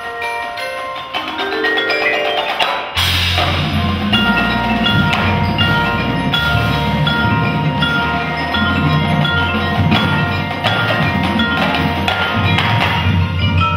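Percussion ensemble music from marimbas and vibraphones. A rising run of mallet notes leads into a loud full-ensemble hit about three seconds in. After the hit, a low bass and drums play under repeating mallet figures.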